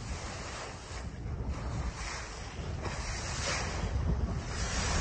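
Sea water washing and splashing alongside a sailboat under way, with wind buffeting the microphone. The noise swells and fades every second or so.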